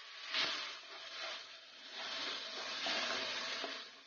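Green masala and freshly added curd sizzling in hot oil in a nonstick wok while being stirred with a metal slotted spatula, the spatula scraping the pan in repeated strokes.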